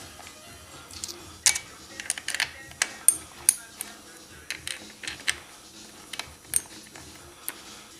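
Irregular sharp metallic clicks and clinks of motorcycle parts and hand tools being handled, clustered between about one and seven seconds in.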